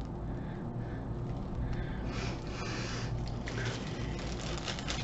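Soft rustling as a sheer organza drawstring bag holding a jewelry card is handled and opened, heaviest about two to three seconds in, over a steady low hum.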